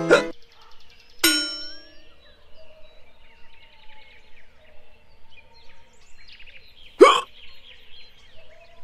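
A bright metallic ding with a ringing tail about a second in, then a single loud, sharp cartoon hiccup sound near the end, over faint chirping.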